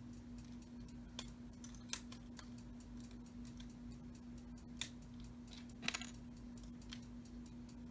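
A few light clicks and taps of Lego plastic pieces being handled, the loudest a quick double click about six seconds in, over a steady low hum.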